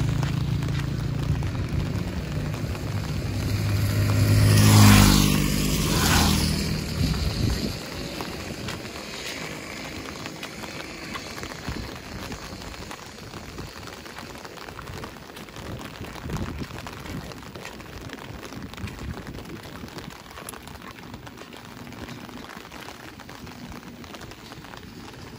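A motor vehicle passes close by. Its engine and tyre hiss build to a peak about five seconds in and fade away by about eight seconds. After that steady rain falls.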